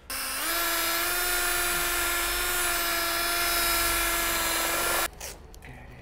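Electric drill running steadily for about five seconds, drilling a cable hole through the trailer's aluminium skin. Its whine rises briefly as it spins up, holds one pitch, then cuts off suddenly.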